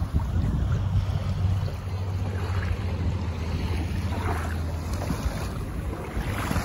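Wind buffeting the microphone in a steady low rumble, with small waves lapping on a sandy shore in a few soft splashes.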